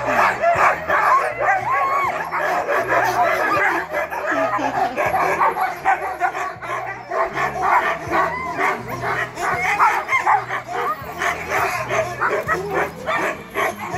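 Many harnessed sled dogs (huskies) barking, yipping and whining together in a continuous, excited chorus, with the calls overlapping throughout.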